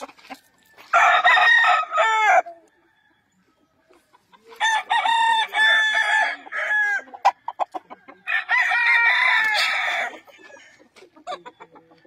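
Young gamecock roosters, stags of seven to eight months, crowing in turn: one crow about a second in, a longer crow in the middle, and a third near the end.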